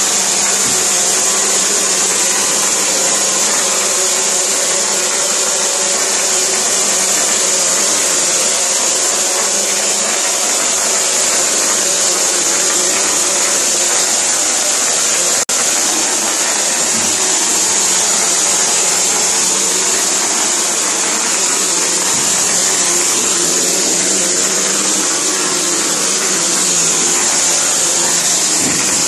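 Cement plaster spray gun blowing mortar onto a wall: a loud, steady hiss of compressed air with a low hum underneath, broken once by a very short dropout about halfway through.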